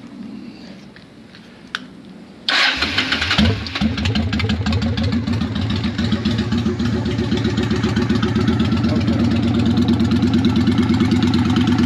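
Honda Shadow Ace V-twin cold-starting through Vance & Hines Cruzer pipes with the baffles removed. After a click it fires about two and a half seconds in, revs up briefly, then settles into a loud, steady, pulsing idle that creeps a little louder.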